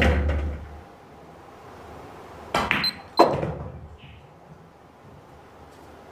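Pool cue tip striking the cue ball and billiard balls clacking together: a sharp click at the start, then a quick run of clicks about two and a half to three seconds in, the last one the loudest.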